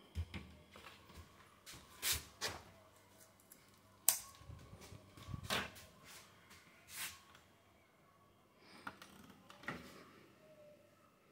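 A handful of sharp, separate clicks and knocks, about seven spread out, with faint rustling between them and no steady machine sound.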